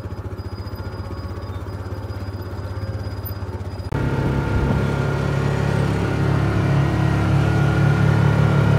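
A vehicle engine running steadily with a fast, even pulse. About four seconds in it becomes abruptly louder and fuller, and it keeps rising slightly after that.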